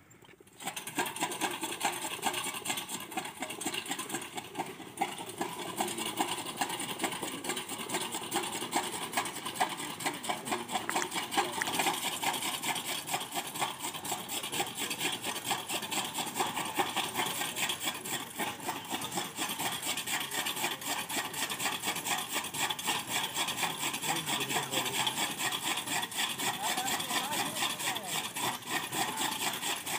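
Camel-powered chaff cutter (toka machine) running: its ground gearbox and driveshaft rattle and clatter rapidly and steadily, starting about half a second in.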